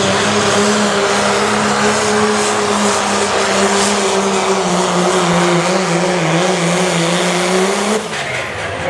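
Diesel pickup's engine running loud and steady at full throttle while pulling a weight-transfer sled. Its pitch drops a little in the last couple of seconds as the load builds, and the engine is cut back suddenly about eight seconds in, as the truck stops at the end of the pull.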